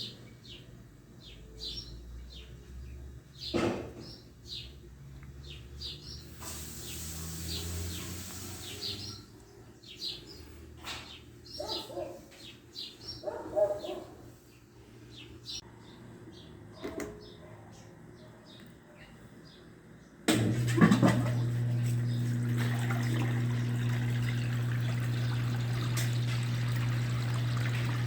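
Birds chirping repeatedly, with a few knocks. About twenty seconds in, a newly replaced washing machine drain pump switches on suddenly and runs with a steady hum while water rushes out: the pump is now drawing the water properly.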